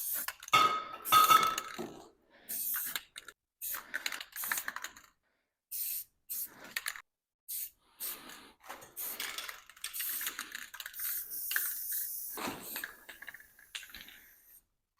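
Irregular clinks, scrapes and knocks of hard objects being handled, with a brief ringing clink about a second in and a stretch of hiss from about ten seconds in that lasts a few seconds.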